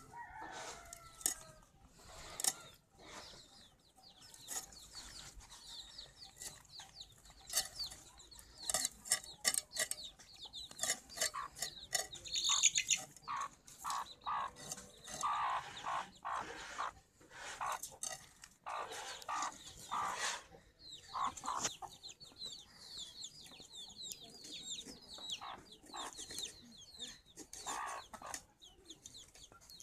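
Chickens clucking on and off, mixed with short knocks and scrapes.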